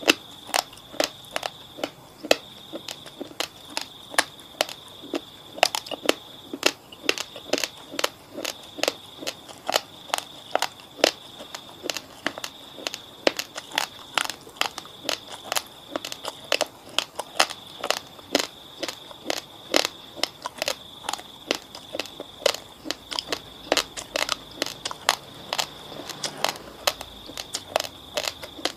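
Close-up chewing of uncooked basmati rice: a quick, irregular run of sharp crunches, about two or three a second, as the hard raw grains crack between the teeth.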